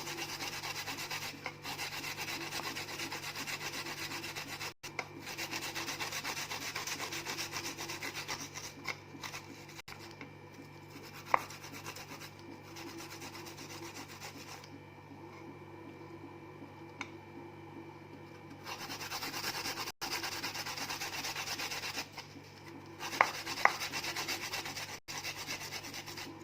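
Shallots being grated by hand on a grater: a continuous rapid rasping of grating strokes that thins out for a few seconds past the middle, then picks up again, with a few short clicks.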